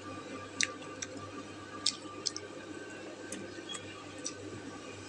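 Eating noises from a person having instant noodle soup: about seven short, sharp clicks scattered over five seconds, over a low steady background hum.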